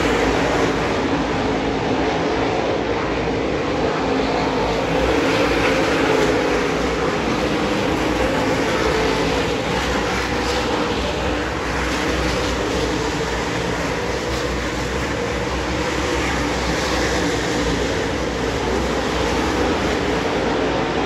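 A field of dirt late model race cars running at speed around the track, their V8 engines blending into one loud, continuous drone.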